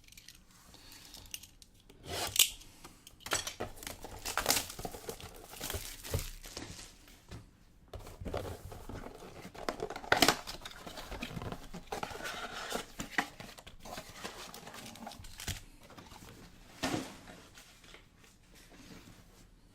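A trading-card blaster box and its packs being torn open: cardboard and wrappers tearing and crinkling in irregular bursts. The sharpest rips come about 2 seconds in and about 10 seconds in.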